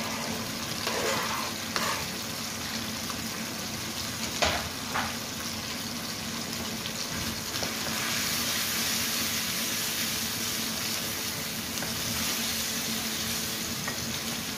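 Chicken pieces sizzling in hot oil in a non-stick wok as chopped tomatoes are tipped in and stirred with a wooden spatula. A couple of sharp knocks come in the first five seconds, the loudest about four and a half seconds in. From about eight seconds the sizzle grows brighter as the pan is stirred.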